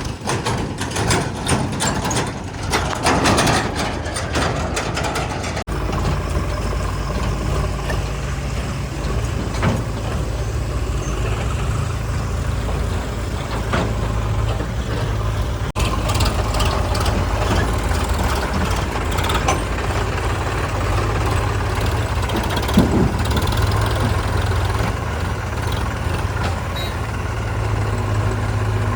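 Heavy diesel engines of a JCB 3DX backhoe loader and a tractor running with a steady low drone, with clatter and knocks in the first few seconds as the machine works.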